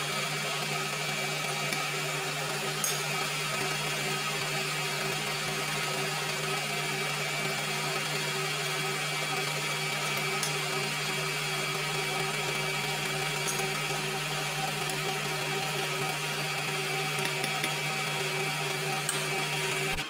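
Electric stand mixer running steadily, its flat beater turning through muffin batter in a stainless steel bowl, with a few faint clicks.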